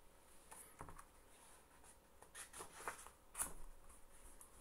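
Pages of a hardcover picture book being turned: a few faint, short paper rustles and taps.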